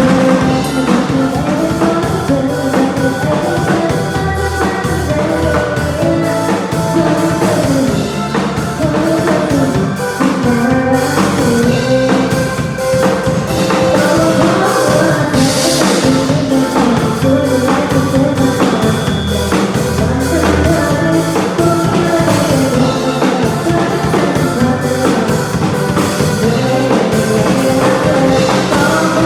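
A band playing live: a drum kit keeping a steady beat under bass and wavering melodic lead lines.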